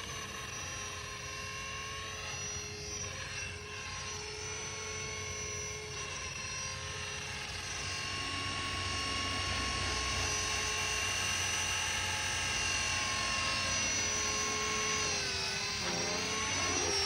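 GAUI X3 electric RC helicopter running: a steady whine from its motor and rotor, the pitch holding level and then wavering up and down near the end.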